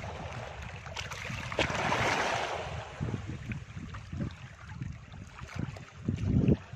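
Gentle surf washing onto a beach, with one louder wash about two seconds in, and wind buffeting the microphone as an uneven low rumble.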